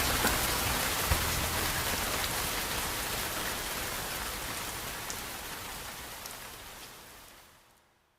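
Steady rain sound effect, fading out gradually over the last few seconds.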